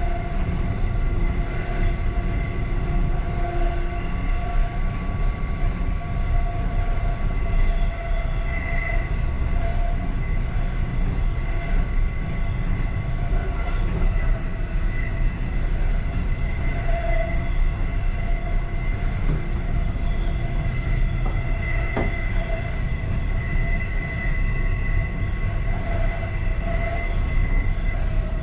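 Passenger train running steadily on the rails, heard from inside the last carriage: a continuous low rolling rumble with a thin, high steady whine over it and a single sharp click about three-quarters of the way through.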